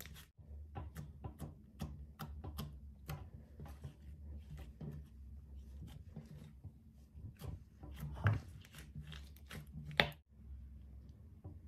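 Hands kneading and squeezing slime: a steady run of small sticky crackles and squelches, with two louder snaps about eight and ten seconds in as the slime is pulled from the table.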